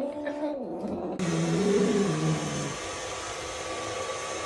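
Sphynx cat yowling in protest at its bath: a drawn-out call at the start, then a second long, low yowl that rises and falls. About a second in, a steady hiss comes in under it.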